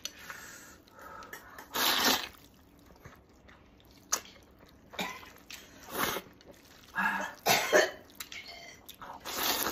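A person slurping wheat noodles in meat sauce, with a series of loud breathy slurps about a second apart and quieter chewing between.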